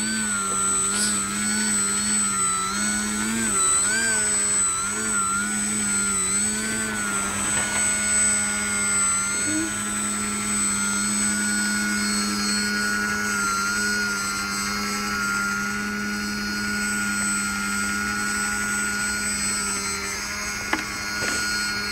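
Motor and propeller of a small foam aerobatic RC plane hovering nose-up on its prop. The whine wavers up and down in pitch for the first several seconds as the throttle is worked, then holds steady. A brief click comes near the end.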